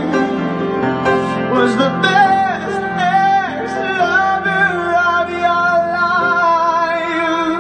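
Male voice singing long held notes with vibrato over grand piano chords.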